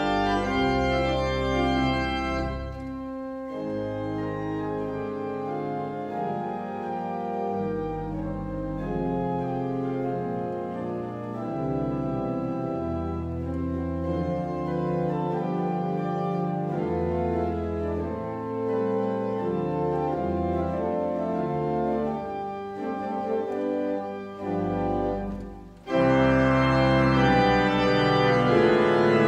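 Church organ playing slow sustained chords over deep pedal bass notes. About three seconds before the end the sound breaks off almost to nothing, then comes back louder with fuller chords.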